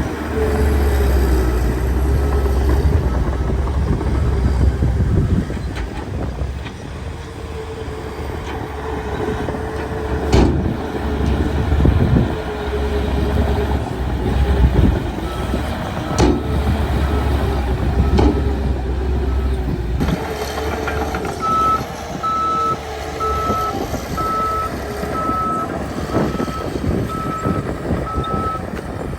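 Diesel engine of a heavy earthmoving machine, a Caterpillar 816D, working steadily, with a few sharp knocks along the way. About two-thirds of the way in, a reversing alarm starts beeping at a steady pace, roughly one beep a second, for about seven seconds.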